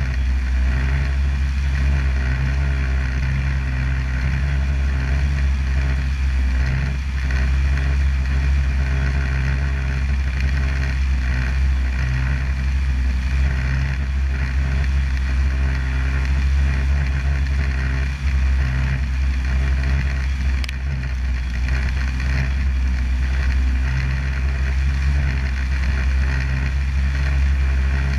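Snowmobile engine running steadily at cruising speed while travelling along a snow trail.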